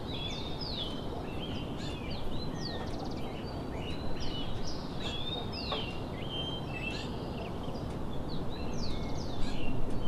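Several small birds chirping without pause in many short, falling calls that overlap each other, over a steady low background noise.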